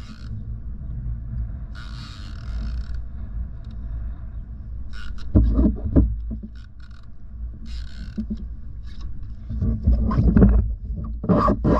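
A kayak on open water: a low rumble of wind on the microphone with water washing against the hull. Knocks and rattles on the kayak come about halfway through, and again near the end as the fishing rod is handled and lifted.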